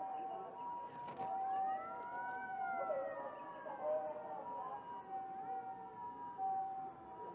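Emergency-vehicle siren wailing: one slow rise and fall in pitch, with the next rise starting about five and a half seconds in.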